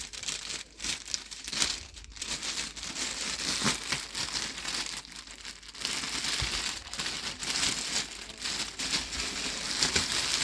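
Plastic mailing packaging being handled and pulled open, with an irregular crinkling and rustling that comes and goes.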